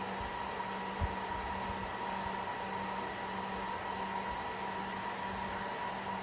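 HPE ProLiant DL360 Gen10 rack server's small cooling fans running at high speed: a loud, steady rush of air with a steady whine through it. One low thump about a second in.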